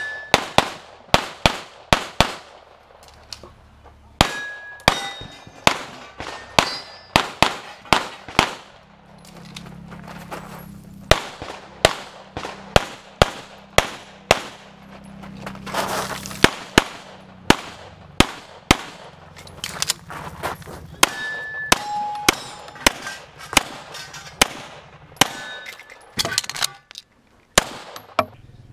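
CZ SP-01 Shadow 9mm pistol firing rapid strings of shots, dozens in pairs and quick groups with brief pauses between them. Some hits are followed by the short ringing of steel targets.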